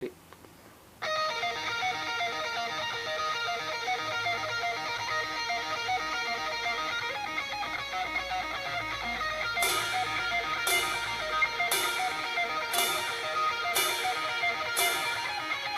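Heavy metal song starting about a second in with a distorted electric guitar intro riff. From about ten seconds in, a cymbal crashes on each beat, about once a second.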